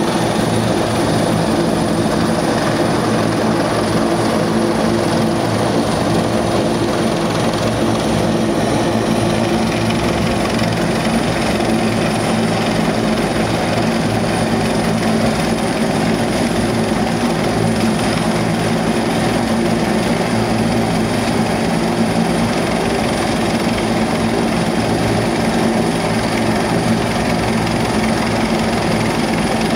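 Rescue helicopter hovering close overhead: a loud, steady drone of rotor and turbine engine.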